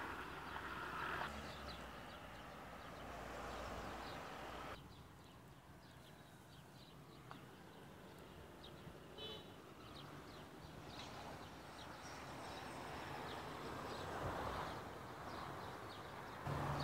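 Outdoor ambience: a steady hiss with scattered faint bird chirps, dropping quieter about five seconds in.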